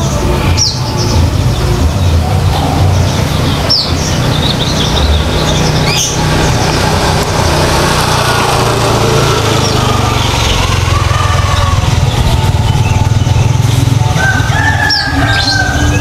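Steady low rumble with a few short, high, rising bird chirps scattered through, and a brief held whistle-like tone near the end.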